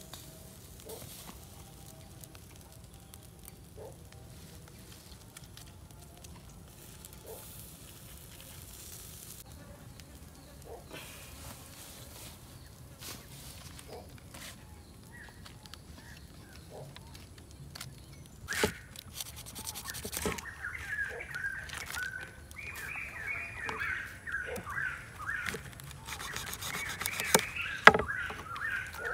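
Faint outdoor background with scattered small ticks. About two-thirds of the way in come sharp knocks and knife cuts as the spit-roasted chicken is carved on a banana leaf. Over them runs a string of quick, warbling bird calls.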